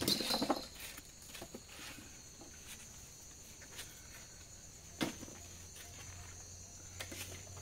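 Crickets chirring steadily and high-pitched in the background, with a few soft knocks of a spoon in a plastic soup bowl, the clearest right at the start and about five seconds in.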